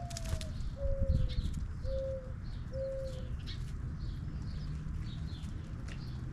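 A dove cooing: a first note that rises and slurs down, then three shorter, even coos, over faint chirping of small birds.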